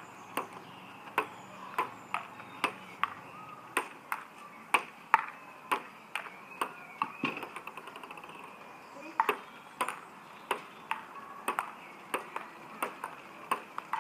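Table tennis rally: the plastic ball clicks off paddles and the table top in a steady back-and-forth, about two hits a second. About seven seconds in, the play stops briefly and the ball bounces to rest on the table in a quick run of ever-faster, fading ticks. Then the rally starts again.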